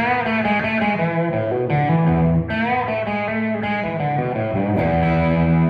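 Gibson Les Paul Custom electric guitar with Tom Holmes pickups, played through an amp with light overdrive: ringing chords struck about once a second, several with string bends.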